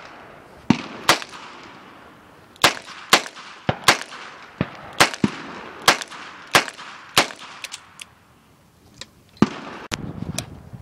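A string of semi-automatic pistol shots, sharp cracks each with a short ringing tail, fired roughly half a second to a second apart. There is a lull about eight seconds in, then one more shot.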